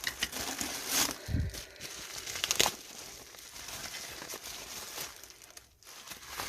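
Packing material crinkling and rustling as items are lifted out of a box, with sharp crackles and a dull thump about a second in.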